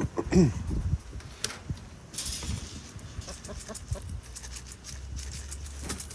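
A hen clucking while being caught and handled, with one short, loud falling call about half a second in, followed by scattered rustling and light knocks.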